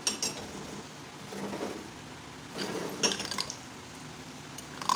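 A spoon stirring chicken pieces through a wet yogurt marinade in a glass bowl, scraping and clinking against the glass in a few short bouts, with a sharper clink near the end.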